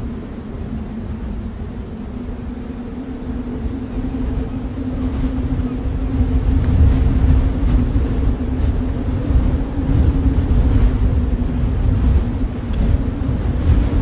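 Snowstorm wind: a steady low rumble with a held low tone running through it, growing louder about six seconds in.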